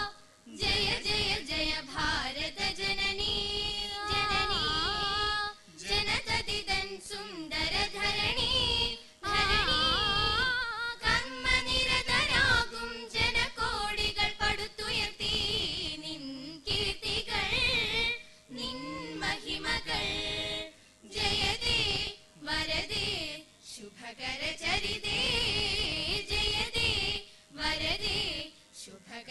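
A group of teenage students, mostly girls' voices, singing a patriotic group song together in long phrases with short breaths between them.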